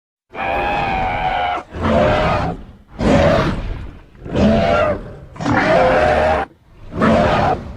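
Fan-made creature sound effect for the Monsterverse's Titanus Quetzalcoatl: a string of six pitched monster calls, a long one about a third of a second in and then five shorter ones about a second apart, each bending in pitch.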